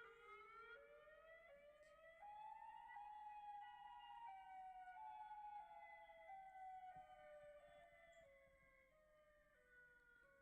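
Faint siren-like horn tone with a full set of overtones. It climbs in small steps for about three seconds, then steps slowly back down in pitch.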